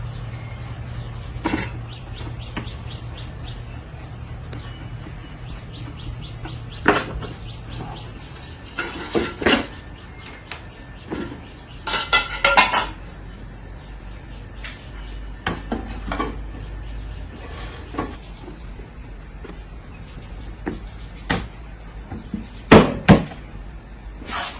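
Irregular taps, knocks and clinks of metal parts and hand tools during repair work, with a cluster of quick clinks about twelve seconds in and two loud knocks near the end. A low steady hum runs for the first eight seconds, then stops.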